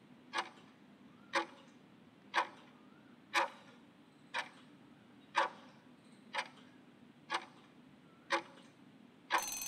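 Countdown-timer sound effect: a clock ticking once a second, nine ticks, then a short ringing alarm-like burst near the end as the count runs out.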